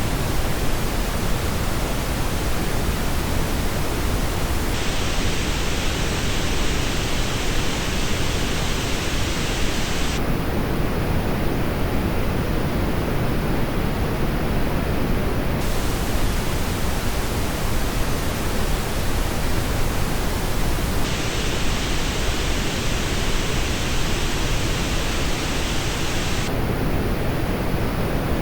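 Steady pink-noise test signal played back through earbuds, switching abruptly about every five seconds between three versions that differ only in the treble.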